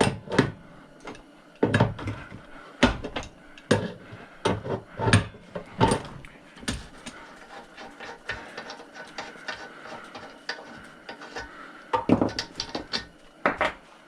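Irregular metal knocks and clanks from hand tools working on a chop saw's seized parts, heavier strikes in the first few seconds and again near the end, with lighter clicks and rattles between.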